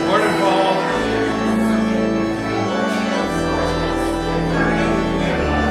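Organ playing slow, held chords, with deep bass pedal notes coming in about a second in and shifting every couple of seconds.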